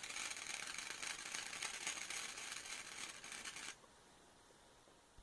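Homemade electric motor with hand-wound coils spinning under power, giving a fast, even clicking hiss that cuts off suddenly about three-quarters of the way through.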